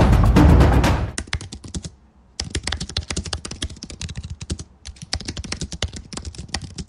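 Music ending about a second in, then fast typing on a computer keyboard: a dense patter of keystrokes, many a second, with two short pauses.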